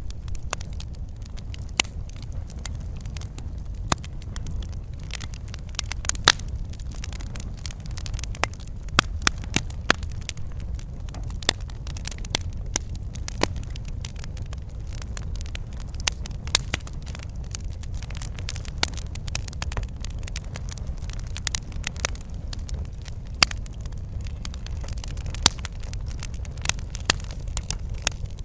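Wood fire crackling in a fireplace: a steady low rumble of burning with frequent sharp, irregular pops and snaps.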